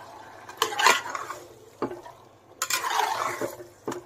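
A spatula stirring chicken pieces through thick masala in a pressure cooker: two long, wet scrapes against the pot, with a few short clacks in between.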